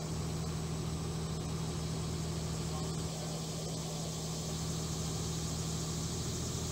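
Engine running steadily at a constant speed, a low, even hum that neither rises nor fades.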